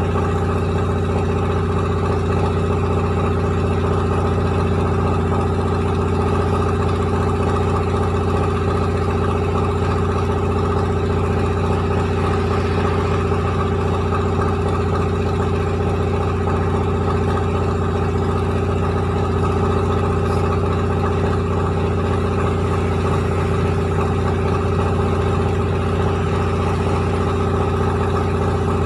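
Rice milling machine running steadily, a continuous mechanical drone with a strong low hum that holds the same pitch and loudness throughout.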